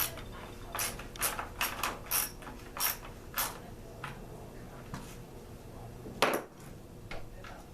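Irregular short mechanical rasps and clicks from hand tools working on a Homelite chainsaw during teardown. The loudest rasp comes about six seconds in.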